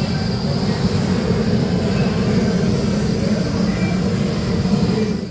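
A steady low rumble of background noise, with no clear events standing out.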